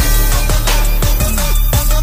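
Hip hop backing music with a heavy beat and deep bass notes that slide down in pitch.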